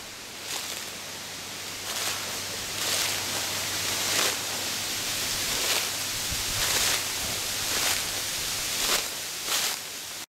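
Dry autumn leaves rustling in a steady hiss, with louder swells about every second; it cuts off suddenly near the end.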